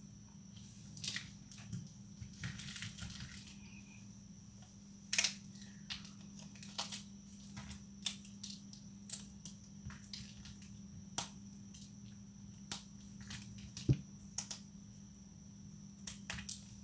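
Thin, dried leftover soap plates being snapped and broken: sharp, crisp cracks at irregular intervals, roughly one a second, with a short crumbly crunch a couple of seconds in.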